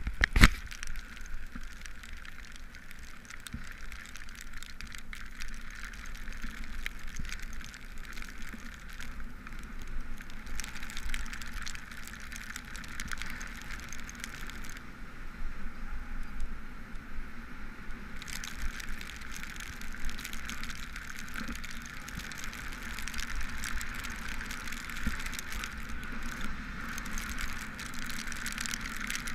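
Bicycle tyres hissing on a wet road while riding in the rain, over a steady low rumble, with scattered raindrop ticks. The hiss thins for about three seconds midway while passing through an underpass.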